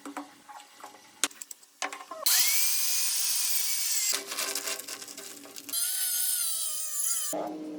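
Handheld power tool, most likely an electric drill, running in several short bursts that start and stop abruptly, after a few scattered knocks and taps in the first two seconds.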